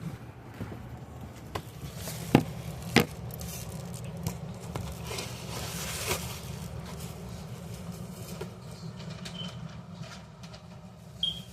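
Handling of a wall calendar and its packaging: two sharp knocks about two and three seconds in, then a rustling swell around the middle, with scattered small clicks over a steady low hum. A brief high chirp sounds near the end.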